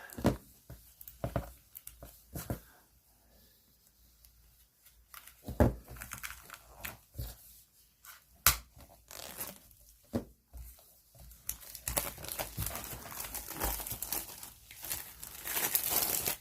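Packaging being torn and crinkled open by hand: irregular ripping and rustling with scattered clicks and knocks, louder and more continuous in the last few seconds.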